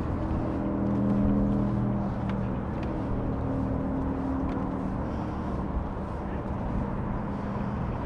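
A motor engine droning steadily, a little louder about a second in and easing off in the second half, with a few faint clicks.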